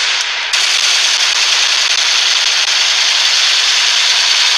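Loud, dense crackling noise, even and unbroken, with a slight shift about half a second in.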